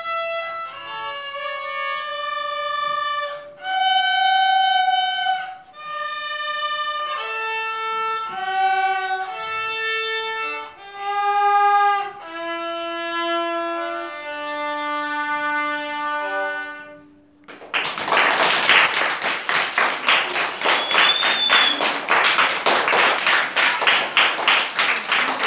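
Two violins playing a slow melody in held notes, ending on a long low note. About three-quarters of the way through the music stops and a group of children bursts into clapping that goes on to the end.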